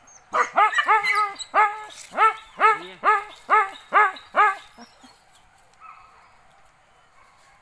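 Leashed hunting dog barking: about eleven short barks, a quick run in the first second and then about two a second, stopping after about four and a half seconds.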